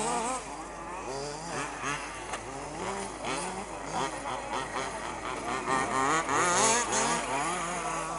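Several 1/5-scale off-road RC buggies' small two-stroke petrol engines buzzing and revving at once as they race round a dirt track, their pitch rising and falling constantly with throttle.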